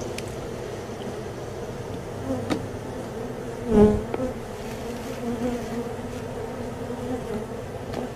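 Honey bees buzzing steadily, the hum of many wings around an opened colony, with a brief louder buzz about four seconds in.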